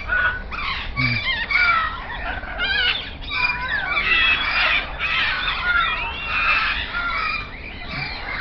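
Many birds calling at once: a dense chorus of overlapping chirps, whistles and squawks.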